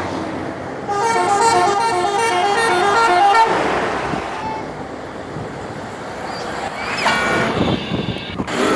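Bus 'telolet' musical horn playing a quick tune of rapidly alternating notes for about two and a half seconds, starting about a second in, followed by the noise of the passing vehicle. A shorter pitched sound comes near the end.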